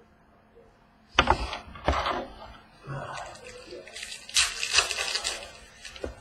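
Trading-card packs being handled: two sharp knocks about a second in, then crackly crinkling and tearing of pack wrappers.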